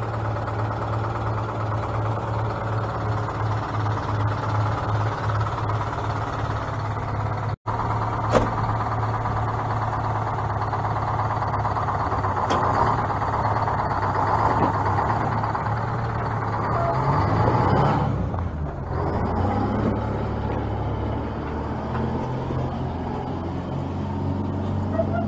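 Diesel engine of a semi truck idling with a steady low hum. It briefly swells in pitch and settles about two-thirds of the way through. The sound cuts out for an instant about a third of the way in.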